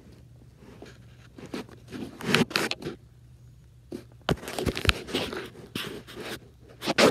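An orange tabby cat's fur rubbing and brushing against a phone's microphone: bursts of scraping, rustling noise, the first about two seconds in, a longer stretch from about four and a half to six seconds, and a loud rub right at the end.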